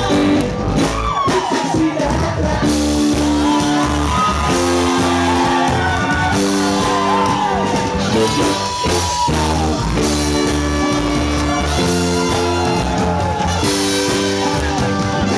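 Live reggae band playing, with a steady bass pulse and sustained chords changing every couple of seconds under the lead singer's voice.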